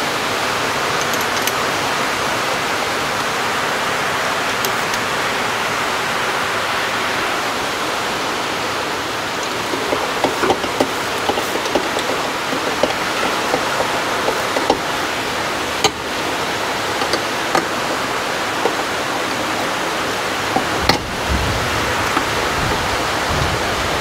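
Heavy rain falling, a steady hiss throughout. From about ten seconds in, small clicks and knocks of hand tools can be heard over it as a spark plug is worked loose.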